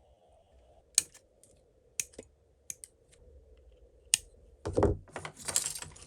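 Hands working on a plastic model kit: a few sharp plastic clicks about a second apart, then a short burst of rustling and scraping near the end.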